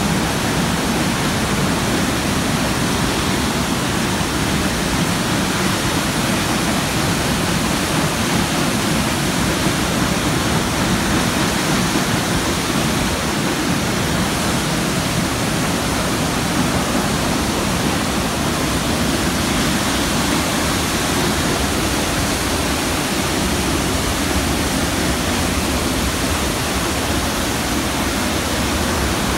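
Large waterfall crashing steadily into its plunge pool, a loud, even rushing roar of water with no let-up.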